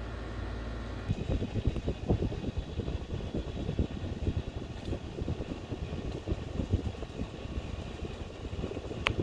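Ceiling fan running with a steady hum; from about a second in, an irregular low rumble of air buffeting the microphone sets in. A short sharp chirp sounds near the end.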